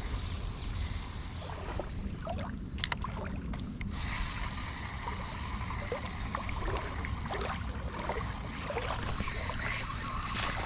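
Creek water sloshing and splashing, over a steady low rumble. A few sharp clicks come about three to four seconds in.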